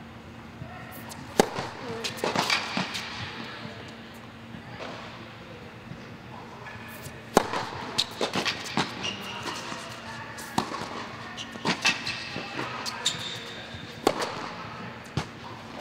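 Tennis balls being struck by racquets and bouncing on an indoor hard court during a rally: sharp pops every second or two, each echoing off the dome, with a serve hit near the end.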